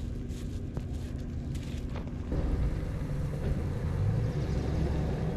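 An engine running steadily with a low hum, growing louder about two and a half seconds in.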